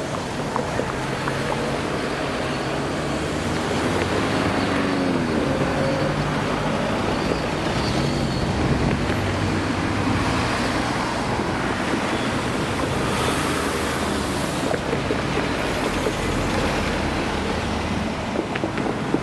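Road traffic: cars driving one after another across a railway level crossing, engines and tyres passing close by, with a few short sharp knocks.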